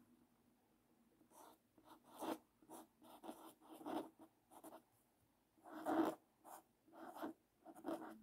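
Black felt-tip marker writing on a paper card: a run of short separate pen strokes starting about a second in, with a brief pause around the middle.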